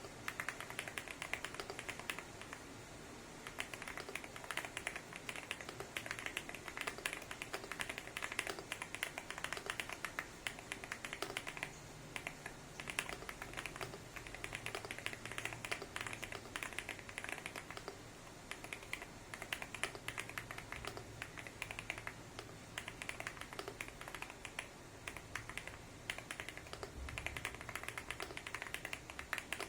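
Fast typing on a Weikav Stars 75 mechanical keyboard with KTT Rouge POM linear switches and thick PBT Cherry-profile keycaps in a gasket-mounted aluminium case: a dense, continuous run of keystroke clacks with a few short lulls.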